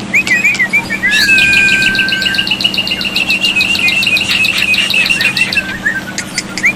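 Black-winged starling (jalak putih) singing. Looping whistled notes and a long level whistle lead into a fast run of repeated chattering notes that lasts several seconds, and looping whistles return near the end.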